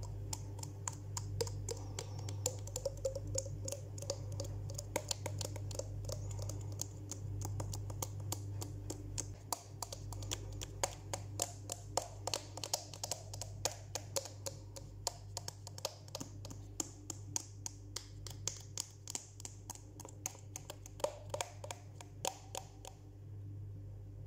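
Rapid, irregular clicks and pops made with the mouth and fingers against the face, over a steady low hum. The clicking stops near the end.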